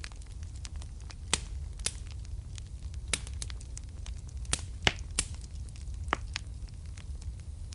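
Wood fire crackling in a fireplace: a steady low rumble under irregular sharp pops and snaps, a few of them louder, about a second and a half in and near five seconds in.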